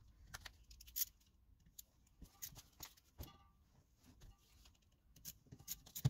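Faint, scattered clicks and taps of metal starter-motor parts being handled and set down on a workbench during disassembly. One tap about three seconds in rings briefly.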